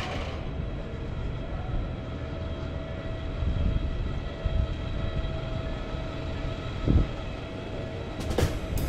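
Street ambience: a steady low rumble of traffic with a faint steady hum, and a single thump about seven seconds in.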